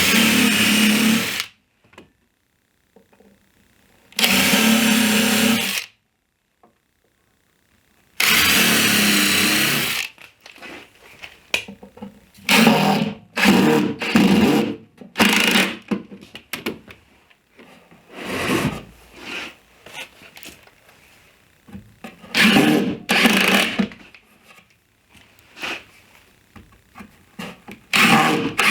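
Power drill drilling pilot holes in plywood: three steady runs of about a second and a half each, then a string of shorter stop-start bursts.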